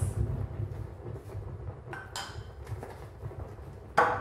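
Milk tea boiling up and bubbling over from a heated clay pot, a low bubbling rumble that slowly fades. Near the end, a single sharp clink with a short ring.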